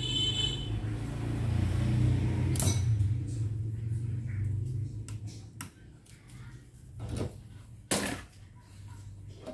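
Spring-loaded desoldering pump (solder sucker) working on a circuit-board joint, with its plunger firing in a sharp snap about two and a half seconds in. A low hum runs through the first half, and a few more knocks and clicks come near the end.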